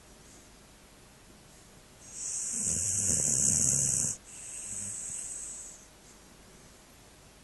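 A lurcher snoring in its sleep: one loud snore about two seconds in, lasting about two seconds, then a softer breath out, with quiet breathing either side.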